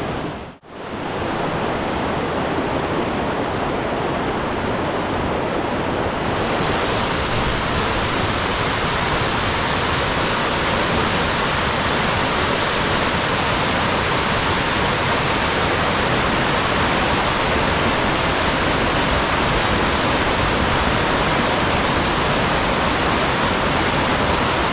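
Rushing water of a mountain valley stream, a steady loud rush. It cuts out briefly just after the start, and turns brighter and hissier about six seconds in.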